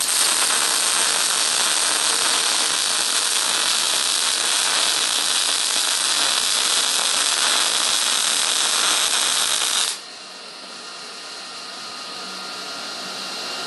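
Electric arc welding on scrap steel: the arc hisses and crackles steadily for about ten seconds, then cuts off suddenly as the arc is broken. A fainter steady hiss carries on afterwards, slowly getting louder.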